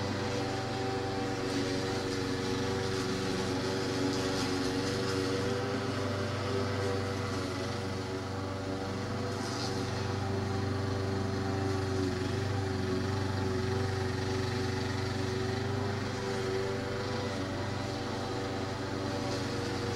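A motor running steadily, holding an even pitch throughout.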